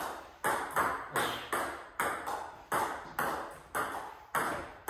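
Table tennis rally: a celluloid/plastic ball struck by bats faced with Hurricane 3 Neo rubber and bouncing on the table, in a short-game exchange over the table. It is an even run of sharp pings, about two a second, each echoing briefly in the room.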